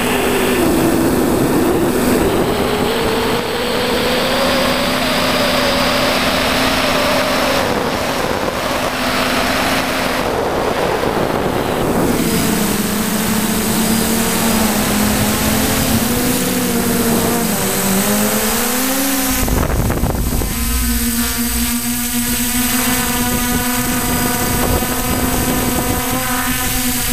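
Multirotor drone's electric motors and propellers whining, heard from on board, their pitch rising and falling as the throttle changes. About two-thirds of the way through, wind buffeting the microphone adds a low rumble.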